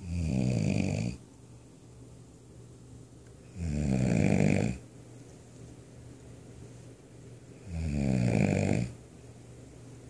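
A sleeping person snoring loudly: three long snores about four seconds apart, each lasting about a second.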